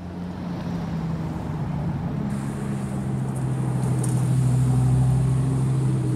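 Lamborghini Huracán Performante Spyder's naturally aspirated V10 running at low revs as the car pulls away, a steady low exhaust note that swells to its loudest about four to five seconds in, then eases a little.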